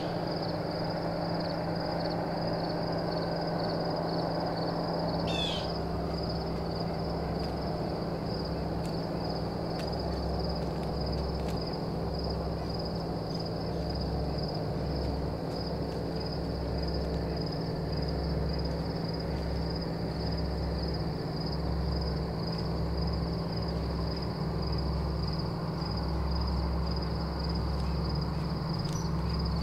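Outdoor woods ambience: an owl hooting over a steady, rapidly pulsing high chirping that runs throughout, with two short falling high calls, one at the start and one about five seconds in.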